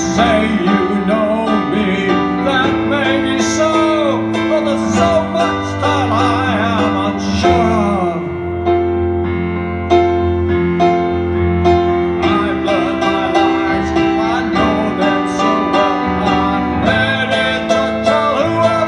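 A man singing live while playing a Ciampi grand piano: sustained piano chords under a wavering solo voice, which pauses briefly about halfway through while the chords carry on. Heard from the audience in a concert hall.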